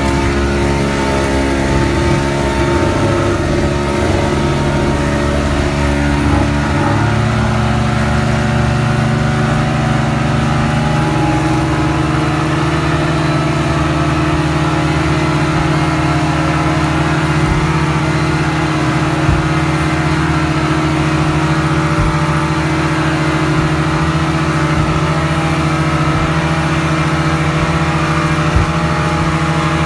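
Twin outboard motors on a speedboat running at high speed, a steady engine drone over the rush of water and wind. The engine note shifts slightly in the first ten seconds or so, and a few brief thumps come through in the second half.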